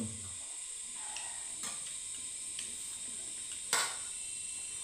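Spoons clicking and scraping on metal plates of rice while eating: a few separate clinks, the loudest near the end, over a steady high hiss.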